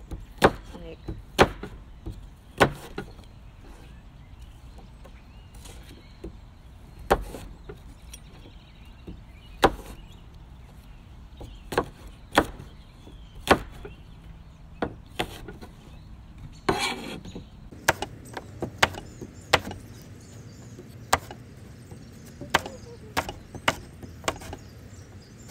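A large kitchen knife dicing an apple on a cutting board: sharp knocks of the blade striking the board, a few seconds apart at first, then about one or two a second in the second half. A brief rustling noise comes about two-thirds of the way through.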